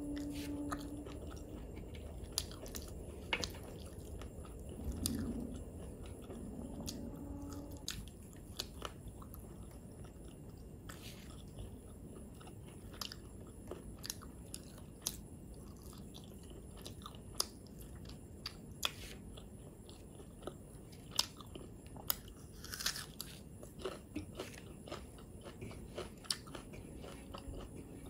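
Close-miked chewing and mouth sounds of a person eating rice and curry by hand, with sharp crunches and wet smacks scattered irregularly throughout. A short pitched hum comes at the start and again about seven seconds in.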